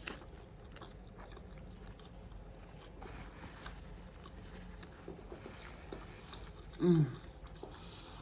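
A person chewing a mouthful of steak burrito close to the microphone, with faint wet mouth clicks and smacks, and a short hummed sound, falling in pitch, about seven seconds in.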